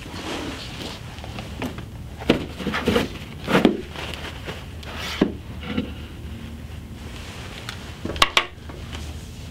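Paper tissues pulled from a box and handled: rustling with several short knocks and scuffs, and two sharp clicks near the end.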